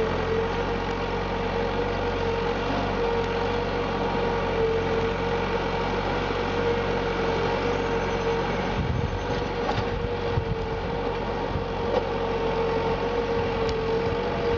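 Valtra farm tractor's diesel engine running steadily as it drags an implement through a flooded rice paddy, with a steady whining tone over the engine hum.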